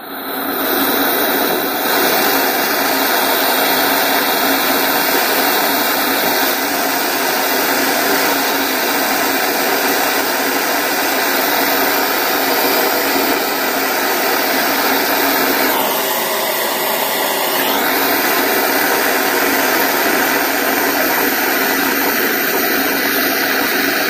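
Gas brazing torch burning with a steady, loud hiss while brazing shut a small refrigerant leak on a refrigerator's iron pipe.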